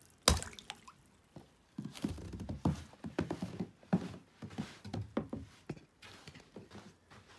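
A heavy 8-pound axe strikes thick ice once, about a third of a second in, followed by a run of smaller crunching and knocking sounds of broken ice chunks.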